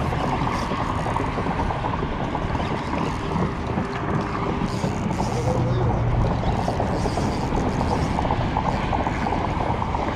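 Spinning reel being cranked steadily, its gears whirring, as a hooked jack is reeled in, with wind on the microphone underneath.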